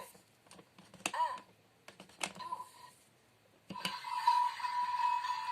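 Clicking of a Little Tikes toy alarm clock's plastic buttons, a few presses each setting off a short electronic blip. About two-thirds of the way in, the toy's small speaker starts a continuous electronic sound that holds one pitch.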